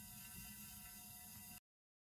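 Near silence: a faint steady hiss with a low hum and a few thin tones, cut off abruptly about one and a half seconds in, leaving dead silence.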